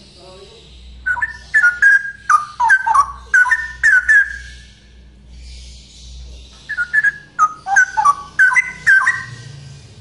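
Male straw-headed bulbul singing: two bursts of loud song, each a quick run of clear notes. The first starts about a second in, the second about seven seconds in.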